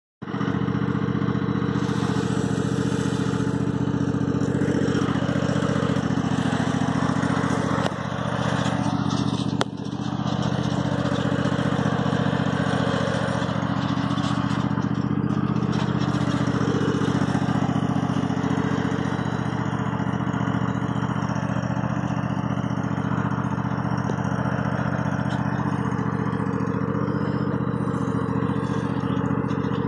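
Husqvarna Z254F zero-turn mower's engine running steadily at low throttle while the mower drives itself across the grass. The sound dips briefly about eight seconds in and again near ten seconds.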